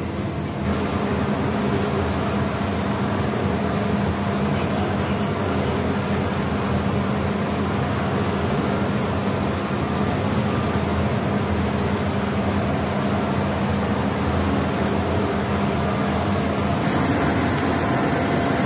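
Steady, loud engine drone with a constant low hum, from vehicle and aircraft machinery running during a C-17 cargo loading; the noise shifts in character near the end.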